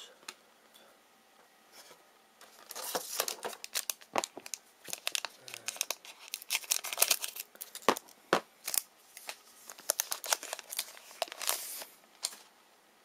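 A trading-card pack wrapper being torn open and crinkled. It is a dense run of sharp crackles that starts about two and a half seconds in and stops shortly before the end.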